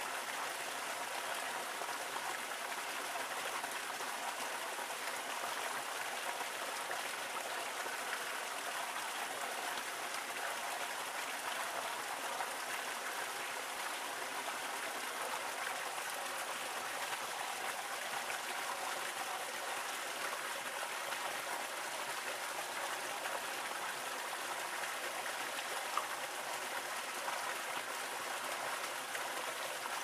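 Small waterfall spilling over mossy rocks into a shallow pool: a steady rush of splashing, trickling water, with an occasional sharper splash.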